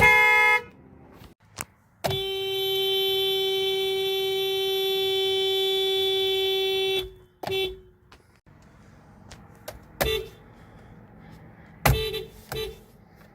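Honda car horns honking: a short beep, then one long steady blast of about five seconds, then a string of short toots.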